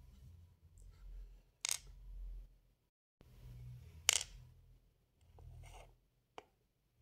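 Metal tweezers clicking against small plastic letter beads as they are picked up and set down on a table: two sharp clicks, at about two and four seconds in, then a couple of fainter ticks, over a low rumble.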